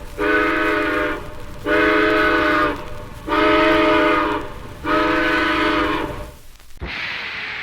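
Steam locomotive whistle sounding four long blasts in quick succession, each about a second long, over a low rumble. A short burst of noise follows near the end.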